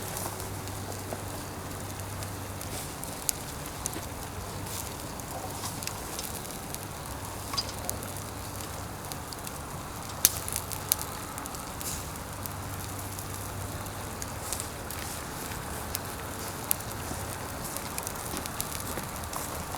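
Pine firewood fire crackling steadily, with sharp pops every few seconds, under a pot of ramen at a rolling boil.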